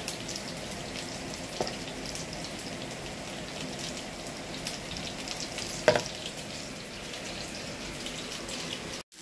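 Breaded chicken nuggets pan-frying in oil: a steady sizzle with light crackles, and a single sharp knock about six seconds in.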